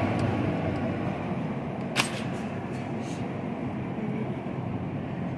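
Steady supermarket background noise, a low even rumble and murmur, with one sharp click about two seconds in and a few faint taps just after.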